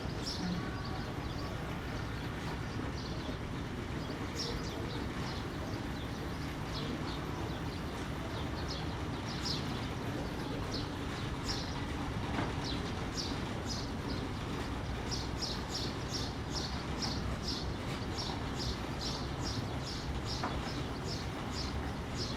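Ferry engine running with a steady low rumble, while small birds chirp over it. The chirps are sparse at first and come quickly, about two a second, in the second half.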